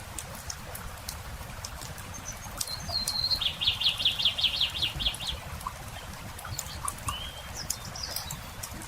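Campfire crackling with scattered sharp pops, while a songbird sings a fast trill of about ten repeated notes about three seconds in. A few short bird chirps follow near the end.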